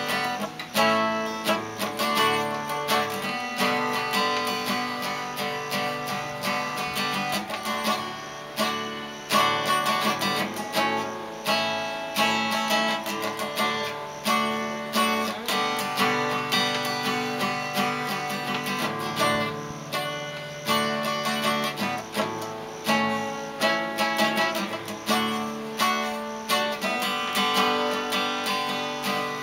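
Steel-string acoustic guitar played solo, chords strummed in a steady rhythm with no singing.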